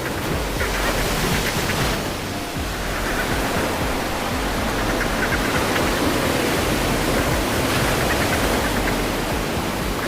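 Ocean water ambience: a steady rushing noise, with soft music underneath.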